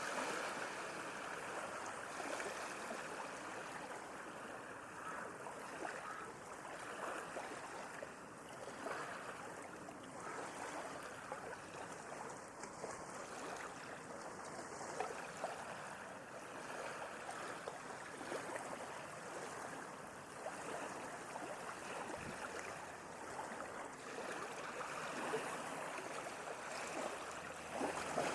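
Sea waves lapping and splashing: a steady wash of water noise made of many small splashes, a little louder near the start and again near the end.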